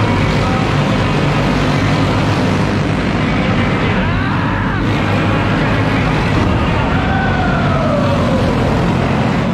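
Several clone-engine racing go-karts, single-cylinder four-strokes, running laps together in a steady engine drone. Passing karts bend the pitch, and one falls away in pitch about seven seconds in.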